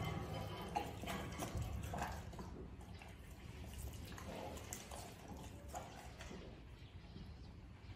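White tiger eating raw meat: faint, wet chewing and tearing sounds, heard as scattered short clicks and smacks.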